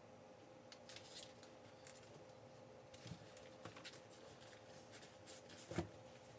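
Faint, scattered clicks and rustles of hardcover and paperback books being touched and shifted on a bookshelf, over a faint steady hum of room tone.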